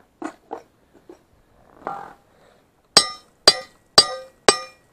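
Hammer striking a steel part of a tractor loader boom: a few light knocks, then four sharp, ringing metal-on-metal blows about two a second, starting about three seconds in.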